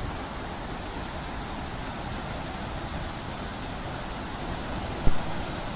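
Floodwater rushing from the open gates of a dam spillway, a steady, even rush of water. A single short thump about five seconds in.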